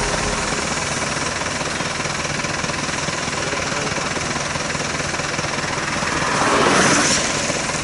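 Steady vehicle engine and road noise on a wet road, with a vehicle passing close by about six to seven seconds in, swelling and then fading.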